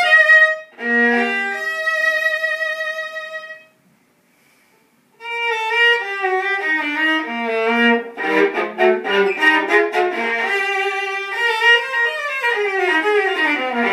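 Violin played with the bow: held notes with vibrato, then a pause of about a second and a half about four seconds in, then quicker runs of notes, often several at once, in the second half.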